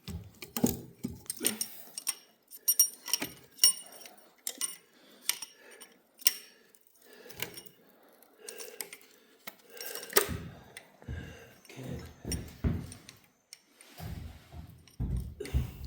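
Loose metal engine parts and hand tools clinking and rattling against each other during a small-block Chevy 350 teardown: a run of sharp metallic clicks with a bright ring, then several duller knocks in the second half.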